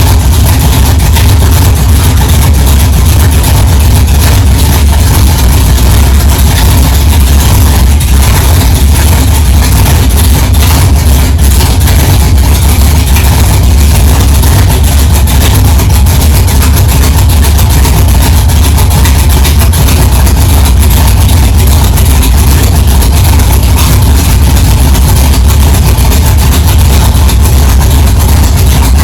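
1964 Chevrolet Chevelle's engine idling steadily and loudly, with a deep low rumble.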